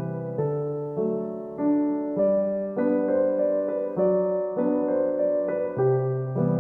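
Background music: a gentle piano or electric-piano melody, with a new note or chord struck about every half second.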